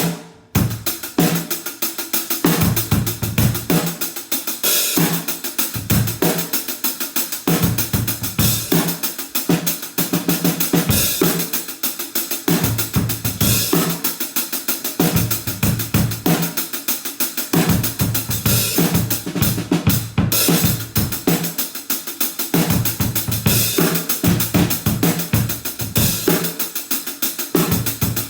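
Acoustic drum kit played continuously: snare, bass drum and hi-hat hits under a wash of cymbals. It is heard raw in the room, without close mics or processing.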